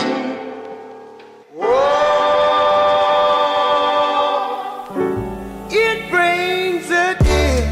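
Background music: a held chord fades out, then a swelling sung, choir-like chord follows. About five seconds in, a gliding vocal melody comes in over a bass, and a beat starts near the end.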